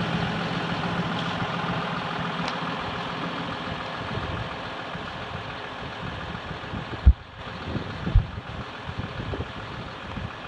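John Deere 6140R tractor's diesel engine idling steadily, slowly growing fainter. Two dull thumps come near the end.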